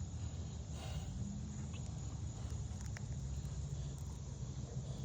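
Steady outdoor background noise: a constant low rumble with a faint high hiss and a few faint light ticks.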